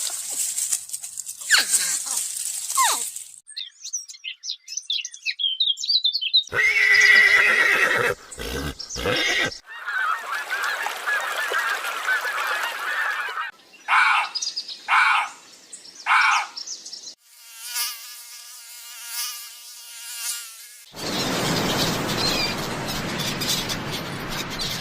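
A string of short animal sound clips cut one after another: quick bird chirps, honking goose-like calls, three short calls in a row and other pitched animal calls, with noisy hiss-like stretches between them.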